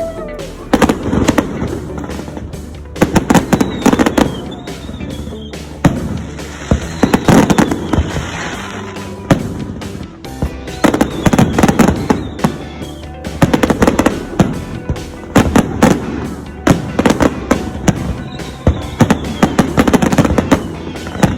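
Aerial fireworks exploding in repeated clusters of sharp bangs and crackles, a new volley every second or two, with a few short falling whistles. Music plays underneath.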